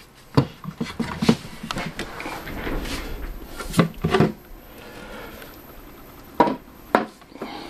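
The wooden carrying case of a Precision 612 tube tester being handled and opened: irregular knocks and clicks of wood and metal latches, with rubbing and handling noise between them.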